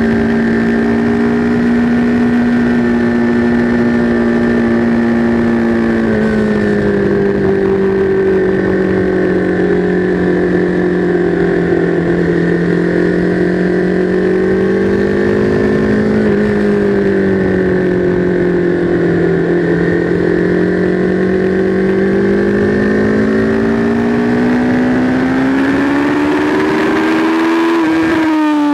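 Sport motorcycle engine heard from onboard while lapping a race track, its note rising and falling with the throttle through the corners. It climbs steadily over the last few seconds, then drops sharply right at the end as the throttle closes.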